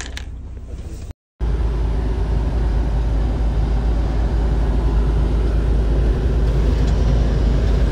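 Semi-truck engine and road noise heard inside the cab: a short stretch of idling, a brief dropout, then a loud, steady low drone of the truck cruising at highway speed.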